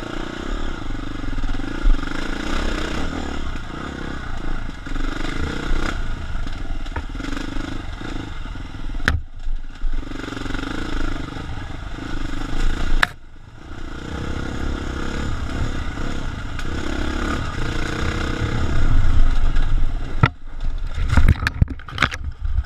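KTM 350 dirt bike's single-cylinder four-stroke engine being ridden, revving up and down with a couple of sharp knocks and brief throttle cuts. Near the end come several sharp crashing impacts as the bike goes down.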